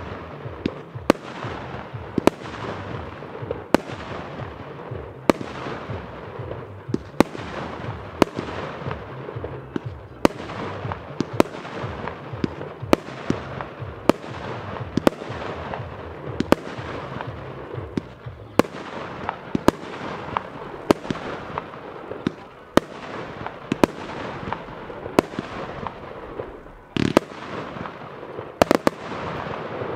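Lesli Titan 138 'Scythe Man' compound fireworks cake firing its 30 mm shots one after another: a sharp report about once a second, each trailed by a fading rush of the breaking effect. Near the end there is a longer, louder burst, then two reports in quick succession.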